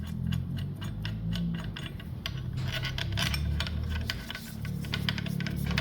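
Irregular light metallic clicks and rubbing as bolts and a bracket are handled and fitted loosely onto an alternator by hand, over low background music.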